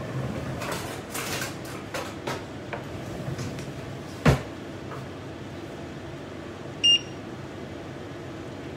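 Kitchen clatter of a baking tray and utensils: a few light knocks, then one sharp knock about four seconds in. A little later a single short electronic appliance beep sounds, over a steady fan hum from the range hood.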